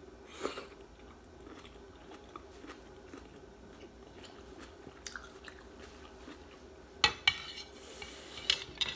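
Someone eating soup: quiet chewing, with small clicks of chopsticks and a wooden spoon against the bowl, and two sharp, loud knocks about seven seconds in as the utensils stir the bowl.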